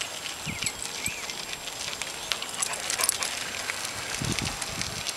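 Rural outdoor ambience: a few small-bird chirps about half a second to a second in, over scattered crackling clicks, with a brief low rumble near the end as a power wheelchair rolls close past.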